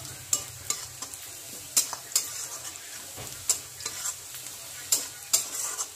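Sliced onions sizzling in oil in a steel kadai, stirred with a spatula that scrapes and knocks against the pan about ten times at irregular intervals.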